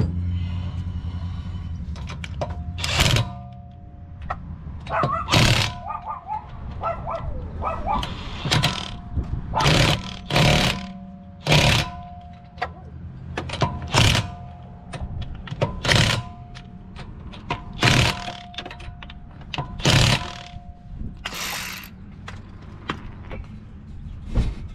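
DeWalt 20V MAX XR cordless impact wrench hammering wheel lug nuts tight. It runs steadily for the first couple of seconds, then fires a series of short bursts every second or two as the nuts are snugged down.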